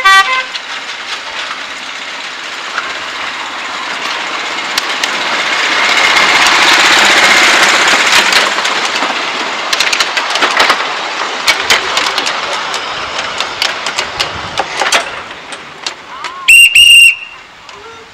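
A petrol-engined miniature-railway locomotive, built as a Class 35 Hymek, gives a short horn toot and then runs past, getting louder and fading again. Its passenger coaches click over the rail joints as they follow it. Near the end come two loud, high-pitched shrieks.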